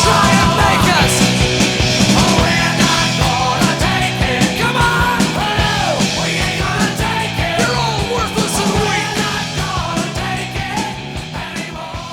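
Background rock music with vocals and a steady beat, fading out near the end.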